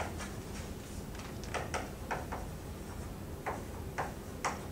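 Chalk tapping on a blackboard while words are being written: a string of short, sharp, irregular taps over a faint steady low hum.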